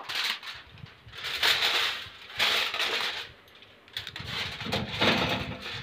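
Aluminium foil crinkling and rustling in several bursts as a foil-covered pan is handled and set on an oven rack.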